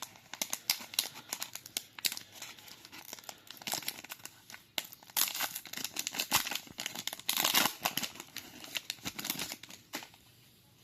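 Trading card booster pack being torn open and its wrapper crinkled and crumpled, a dense run of irregular crackles and rustles that dies away near the end.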